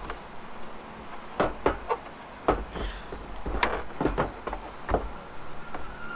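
Irregular knocks and clicks of truck headlight parts and tools being handled as the headlight assembly is removed, about eight in all, bunched between one and five seconds in.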